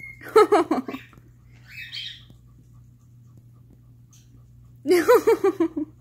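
A person laughing in two short bursts, one just after the start and one near the end. A brief high chirp from a green-cheeked conure comes in between.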